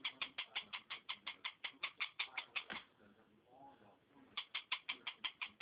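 A pet bird giving a rapid, even series of short chirps, about six or seven a second, for nearly three seconds. After a pause it gives another quick run of the same chirps near the end.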